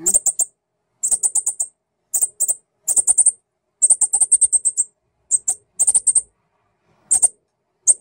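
Fledgling northern cardinal giving quick, sharp, high-pitched chip calls in short bursts of several notes each, the begging calls of a young bird waiting to be fed.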